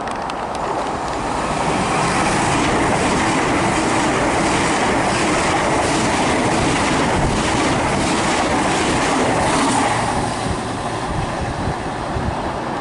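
Two coupled Class 800 intercity trains passing through the station at speed. A rush of wheel and running noise builds over the first couple of seconds, then holds loud with a regular clatter of wheels over the rails as the carriages go by, and eases off after about ten seconds.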